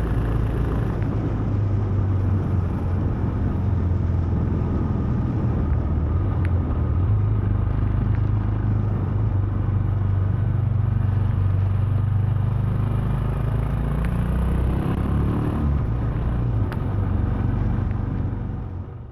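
Royal Enfield Himalayan's 411 cc single-cylinder engine running as the motorcycle rides, a steady low drone with wind and road rumble, its pitch shifting briefly about three quarters of the way through. The sound fades out near the end.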